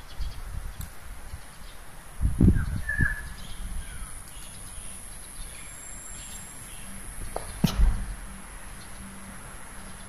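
Open-air ambience with a low fluctuating rumble of wind on the microphone, and two dull thumps about two and a half and eight seconds in. A short bird chirp comes just after the first thump, over a faint steady high-pitched hiss.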